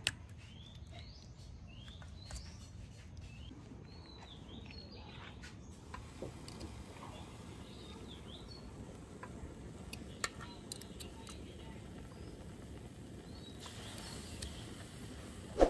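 Small birds chirping in short rising calls for the first few seconds. From about six seconds in, a faint high hiss of fat heating in a grill pan, with a few light clicks of metal tongs laying raw pork slices on the pan, and a sharp knock near the end, the loudest sound.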